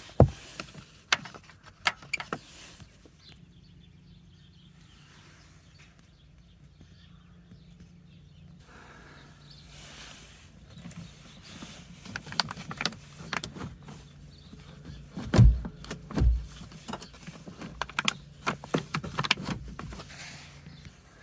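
Hand and tool work on a car: irregular clicks, knocks and rattles from handling parts while getting at the 12V battery, with two heavy low thumps about fifteen seconds in.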